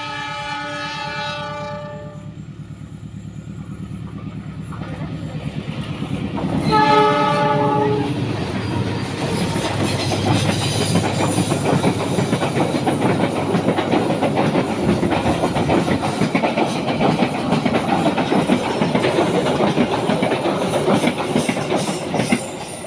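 Passenger train's locomotive sounding its horn twice, a long blast at the start and a shorter one about seven seconds in, as the locomotive's engine grows louder on its approach. Then the train passes close by with loud wheel-on-rail clatter.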